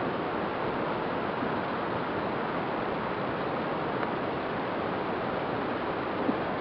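Steady rushing air noise, an even hiss with no motor tone standing out, of the kind wind makes on a microphone.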